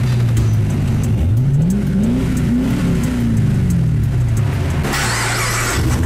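2011 Camaro SS 6.2-litre V8 exhaust, run through a stainless X-pipe with no resonator and aftermarket mufflers, idling, then revved once about a second in and settling back to idle. A burst of hiss comes near the end.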